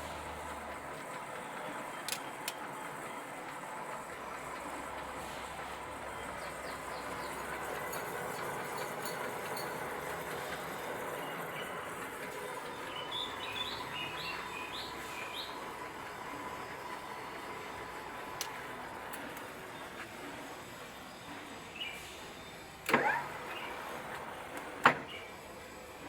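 Metal lathe running steadily, a mechanical hum with several steady tones, broken by a few sharp clicks and two louder clacks near the end.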